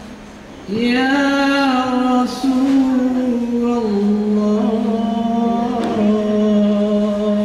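A solo male voice chanting an Islamic devotional sholawat into a microphone. After a brief pause it holds one long ornamented note, then drops to a lower long note about halfway through.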